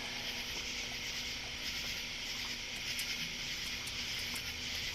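Steady chorus of night insects, crickets and katydids, as a continuous high hiss, with a faint low hum under it and a few small clicks in the second half.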